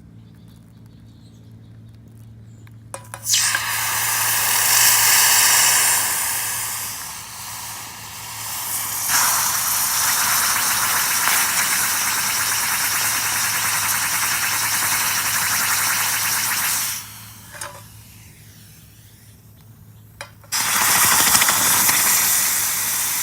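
Red-hot cast silver ball with Petrobond sand clinging to it being quenched in water, hissing and sputtering steam. The hiss starts about three seconds in, stops for a few seconds near the end, then starts again.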